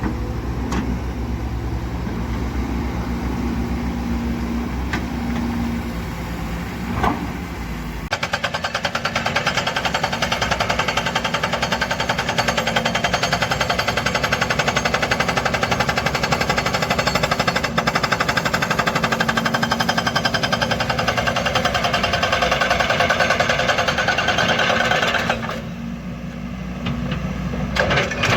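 Kobelco excavator's diesel engine running, then about eight seconds in its hydraulic breaker starts hammering rapidly and steadily on rock. The hammering stops about three seconds before the end, leaving the engine running.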